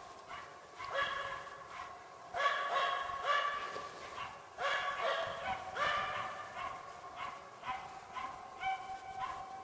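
Finnish spitz barking over and over in quick runs of short, high barks. This is the steady treeing bark with which a bird-dog spitz marks game it has put up a tree.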